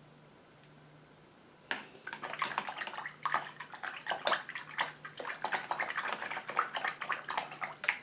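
A paintbrush being swished rapidly around a bowl of water to rinse out water-mixable oil paint. The splashing and clattering starts about two seconds in and keeps going in quick, irregular strokes.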